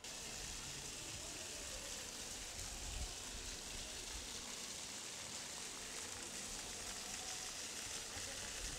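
Ground-level fountain jets spraying water up from a channel in stone paving, with a steady hiss of spray and falling water.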